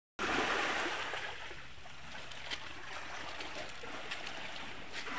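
Small sea waves washing over a rocky, pebbly shore: a steady hiss with a few faint clicks, starting just after a brief silence at the very beginning.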